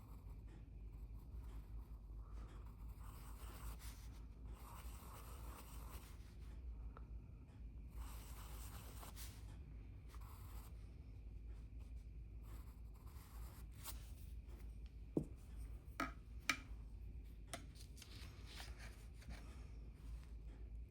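Pencil or pen strokes scratching across paper in soft bursts of drawing, with a few sharp clicks about two-thirds of the way through, over a steady low hum.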